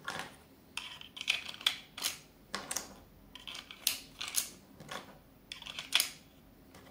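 Crossbow bolts being laid one on top of another into a pistol crossbow's magazine: irregular light clicks and clatters, about two a second.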